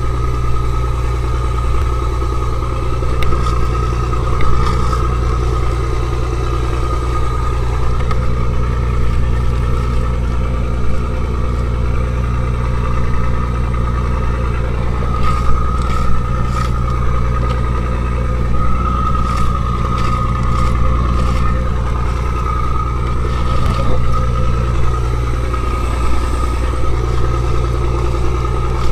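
Fishing trawler's engine running steadily: a loud, constant low drone with a steady whine above it. A few light clicks and knocks come through as the catch is handled on the deck.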